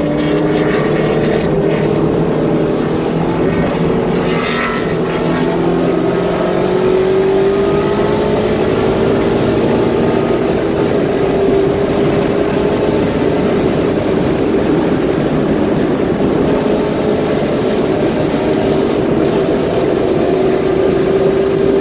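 Car engine and exhaust running under steady load, the engine note rising slowly and evenly. The car has an exhaust leak at the header, which the driver heard on this lap.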